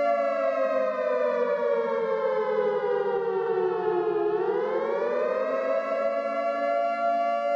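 Outdoor warning siren sounding: its tone slides slowly down in pitch for about four seconds, then climbs back up over the next two seconds and holds steady.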